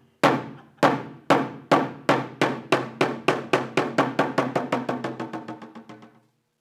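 Korean samul nori drums struck in a run of single strokes that start about two a second, speed up steadily into a fast roll and fade away, ending about six seconds in.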